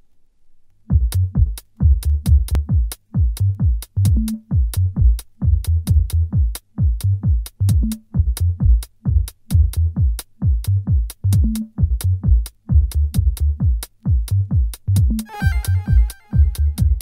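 Techno track: a fast, even drum-machine beat over a deep pulsing bass starts about a second in, with a short synth chord near the end.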